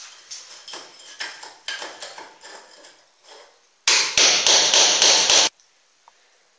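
A hammer striking a steel chisel held against a wall, chiselling a hole into it: a few lighter taps, then a quick run of about seven much harder blows that stops suddenly a little past halfway through.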